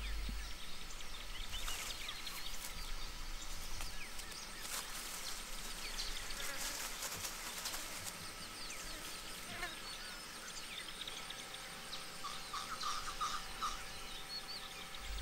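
Forest ambience of insects chirping and buzzing, with scattered short high calls and a brief run of rapid calls about twelve seconds in.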